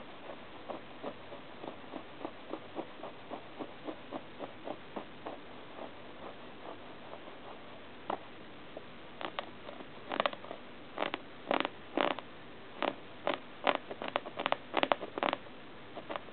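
Labrador puppy chewing and gnawing. It starts as soft, even clicks about three a second, then from about halfway becomes louder, irregular bites and clicks.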